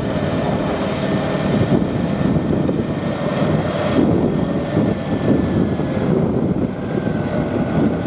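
Vintage tractor engines running steadily as the tractors work past pulling ploughs.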